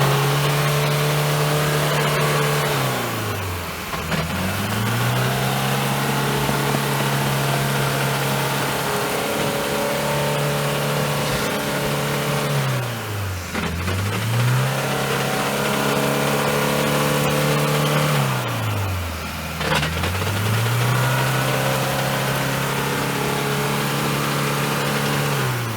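Off-road vehicle's engine revved hard and held at high, steady revs, dropping off and winding back up three times, as the driver tries to power through deep mud.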